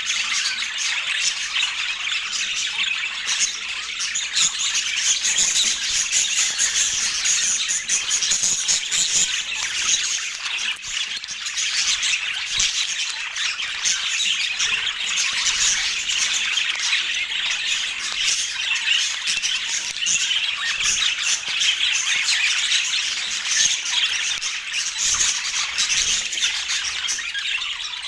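Budgerigars chattering and squawking continuously, a dense mix of fast chirps and warbles with no pauses.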